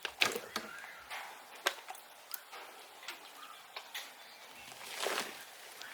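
Irregular light taps and knocks, about a dozen, with a longer scrape about five seconds in.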